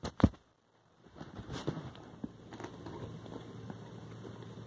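Faint handling noise of a phone camera being moved: two sharp clicks at the start, a brief dead-silent gap, then a low rustle with a few small ticks.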